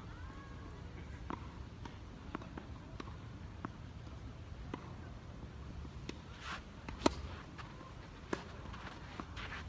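A tennis ball bounced repeatedly on a sand-dressed artificial turf court as the server prepares, each bounce a short dull click about once a second. About seven seconds in comes a much louder sharp racket strike on the ball, then another hit a second later, with shoe scuffs on the sandy surface.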